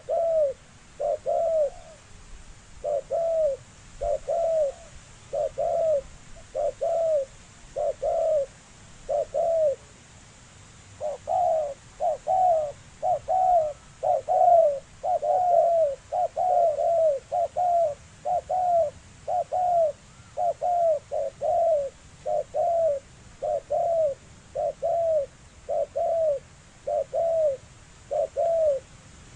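Spotted dove cooing in the deep 'thổ sấm' style: a long run of short, arched coos, about one or two a second. The coos pause for about a second and a half near the middle, then come faster.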